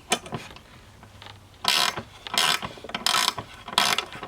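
Ratchet wrench loosening hex nuts: from about a second and a half in, a run of short ratcheting strokes, roughly one every 0.7 seconds.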